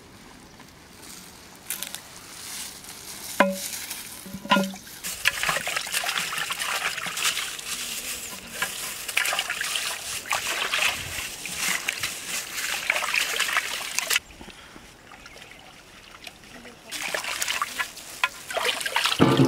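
Water splashing and sloshing in a large steel pot as a whole skinned goat carcass is rubbed and washed by hand. Two knocks with a brief ring come about three and a half seconds in, before the splashing.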